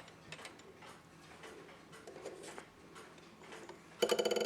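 Hermle 141-041 clock movement ticking faintly, then about four seconds in a hammer strikes the newly readjusted gong, which rings out loudly.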